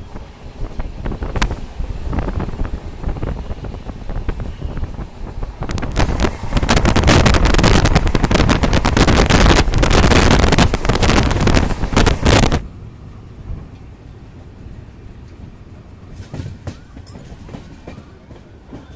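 Indian express passenger train running at speed, heard from an open coach window: wheel and rail noise with wind buffeting the microphone. It is loudest for about six seconds in the middle, then cuts off suddenly to a quieter rumble with a few clicks near the end.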